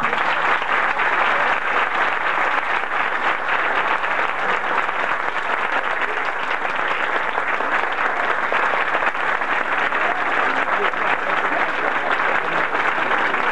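Large audience applauding, a dense, steady clapping of many hands.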